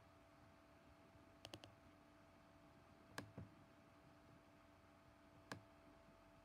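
Quiet clicks of a computer pointer button while a design is being edited: one, then a quick three about a second and a half in, two close together about halfway, and one more near the end, over a faint steady hum.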